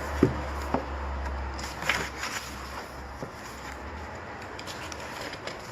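Handling of K-pop album packaging and photocards: a couple of soft knocks in the first second and a brief rustle about two seconds in, then a few faint ticks, over a steady low hum.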